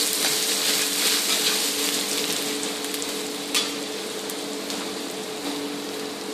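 Chopped garlic and ginger sizzling in hot oil in a wok, sautéing, with a spatula stirring at first; the sizzle eases off gradually. A single sharp knock about three and a half seconds in, over a steady low hum.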